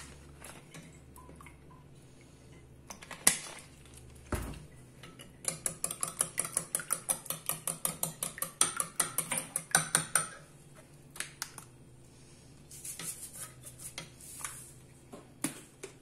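Eggs being beaten in a bowl: a metal utensil clicks rapidly against the bowl, about five strokes a second, for about five seconds in the middle. Before it come a sharp knock and a dull thud of dishes, and after it a few scattered clinks.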